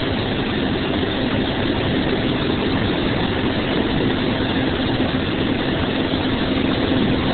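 Steady road and engine noise inside a moving car's cabin, an even rush with a faint constant low hum and no changes.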